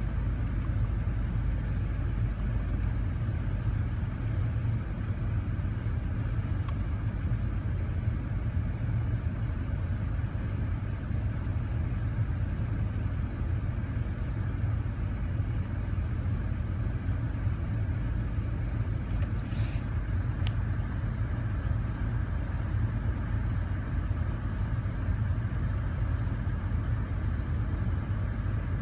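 Car engine idling steadily with a vacuum leak, a low, even rumble.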